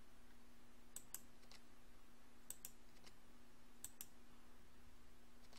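Faint computer keyboard and mouse clicks: about seven short clicks, mostly in quick pairs, as vertices are placed one by one with the E key and left mouse button. A faint steady low hum lies under them.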